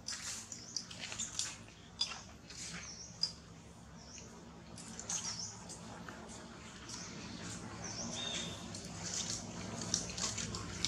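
Newborn long-tailed macaque infant giving many short, high-pitched squeaks as it crawls toward its mother, a low steady hum rising in the background toward the end.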